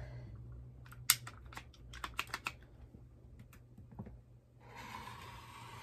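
Rotary cutter and clear acrylic quilting ruler working on a cutting mat: a run of light, separate clicks and taps as fabric is trimmed. A faint steady hiss comes in about four and a half seconds in.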